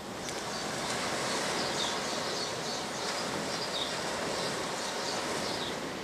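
Steady outdoor background noise with many short, high chirps scattered irregularly through it.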